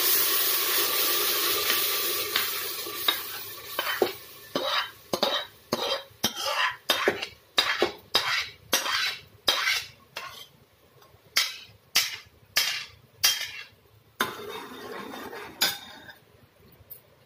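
Masala paste hitting hot ghee in an aluminium pressure cooker sizzles loudly and dies down over the first few seconds. Then a metal spoon scrapes the paste out of the kadhai into the cooker in a run of sharp scrapes and taps, about one and a half a second, ending in a short stir.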